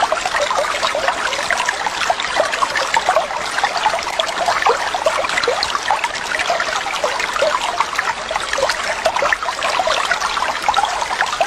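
Water splashing and trickling steadily: a dense, even patter of many small splashes.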